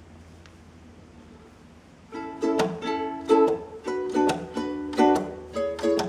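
Ukulele starts up about two seconds in, playing a rhythmic intro of chords, each stroke a sharp pluck that rings briefly.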